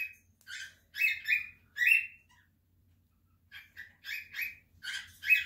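A pet bird chirping in quick, repeated short calls, with a pause of about a second and a half in the middle.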